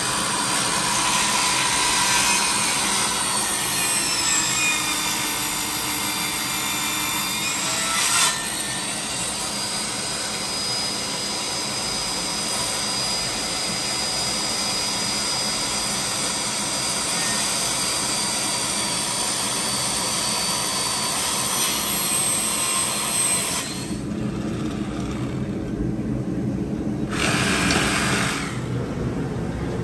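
Handheld circular saw running and cutting through MDF board, its whine shifting in pitch as it cuts. Near the end the saw's whine drops away for a few seconds, then it runs briefly again.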